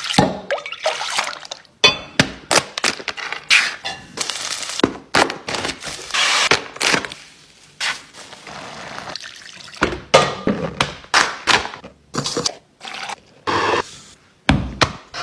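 Kitchen cooking sounds: a quick string of knocks and clatters from utensils and containers, with liquid being poured in places.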